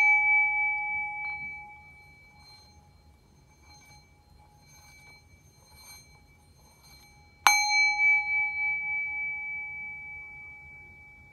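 A small metal chime or bowl struck twice to clear the energy, each strike ringing a clear high tone with fainter overtones above it. The first ring, struck just before, is already sounding and fades within about two seconds; the second strike comes about seven and a half seconds in and rings out slowly over several seconds.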